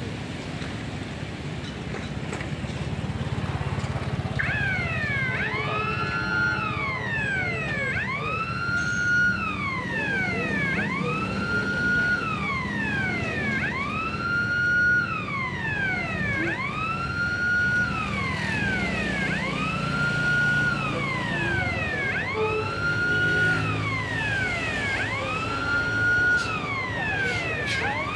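Electronic siren wailing, its pitch sweeping down and back up in a cycle of about two seconds, starting about four seconds in and repeating steadily, over a low background rumble.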